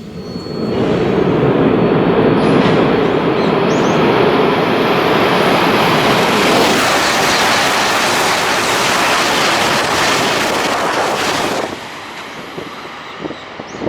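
Tohoku Shinkansen train passing at high speed: a loud rushing noise that swells within the first second, holds steady for about ten seconds, then drops off abruptly near the end.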